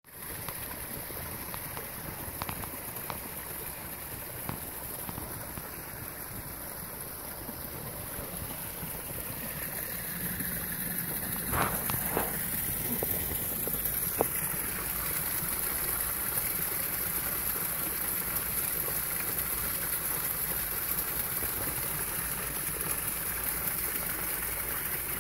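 Running water from a creek or spring, a steady rushing hiss that grows a little louder about ten seconds in, with a few faint knocks.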